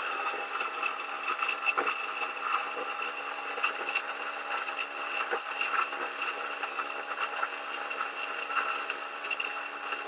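DF64E single-dose grinder running, its 64 mm flat burrs grinding a dose of coffee beans. A steady motor hum carries a dense crackle of beans being crushed.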